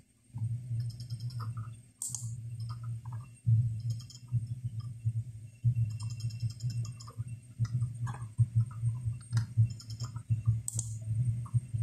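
Computer mouse clicking irregularly while settings pages are opened, over a steady low hum. Two sharper clicks stand out, about two seconds in and near the end.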